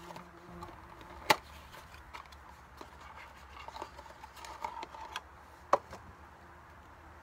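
A small cardboard parts box being handled and opened by hand, with rustling, small clicks and two sharp snaps, one about a second in and one near the end.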